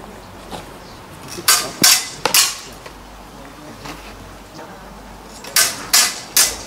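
Fencing sabres clashing blade on blade in a bout: three quick sharp strikes about a second and a half in, then another run of three near the end.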